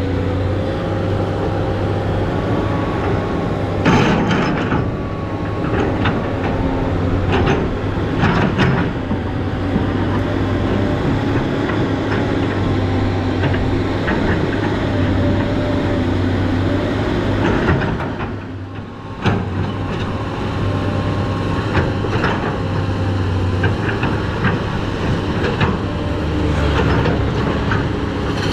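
SANY SY215C excavator's diesel engine running steadily at work, with a few sharp knocks and clanks in the first ten seconds or so, and a brief drop in level about eighteen seconds in.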